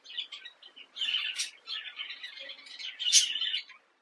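Birds chirping in quick high bursts, loudest about a second in and again near the end.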